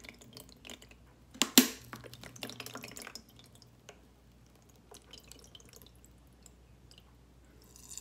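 Water trickling and dripping from a plastic bottle into the basin of a small tabletop water fountain, with one louder sharp hit about a second and a half in; the pour thins to sparse drips after about three seconds. A faint steady low hum, the fountain's small pump running, lies underneath.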